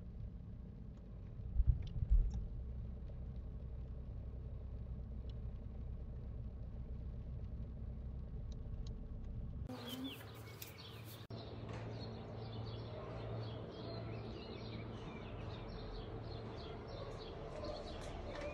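Steady low rumble of a car driving, heard from inside the cabin, with a couple of thumps about two seconds in. About ten seconds in it cuts to outdoor ambience with birds chirping.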